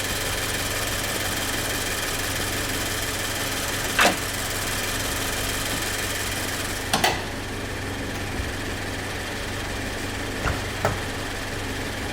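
Car engine idling steadily, with a sharp click about four seconds in and another pair of clicks about seven seconds in.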